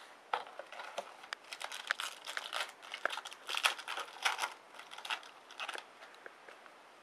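Foil wrapper of a trading-card pack crinkling and tearing as it is ripped open by hand, in a dense run of rustles lasting about five and a half seconds, followed by a few light clicks.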